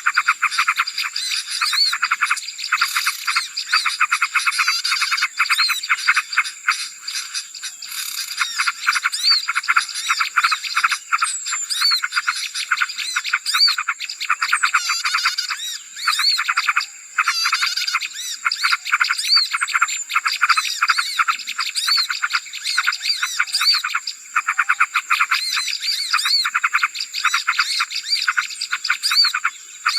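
Noisy chorus of many small birds chirping and chattering rapidly and without a break, played as a bird-lure call for small birds. A steady high-pitched tone runs underneath.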